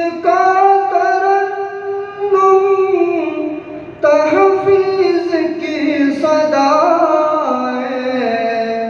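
A solo voice singing a naat, an Islamic devotional song, in long held notes that glide from one to the next. The phrases follow one another about every two seconds, with no percussion heard.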